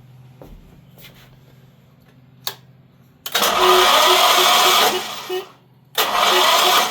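Electric starter motor cranking the generator's 32 hp V-twin OHV engine with both spark plugs out, in two bursts about three and six seconds in, the first about two seconds long. The engine spins over freely without firing, showing it is not seized.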